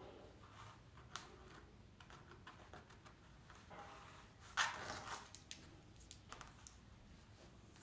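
Faint scattered taps and scratches of a pencil and metal ruler on a stretched canvas as lines are ruled, with a louder brief scrape a little past halfway as the ruler is shifted to a new angle.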